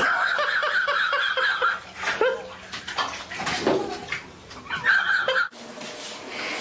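Bathwater splashing and sloshing as a cat that has fallen into a filled bathtub thrashes about, with high-pitched cries over it. It cuts off sharply about five and a half seconds in.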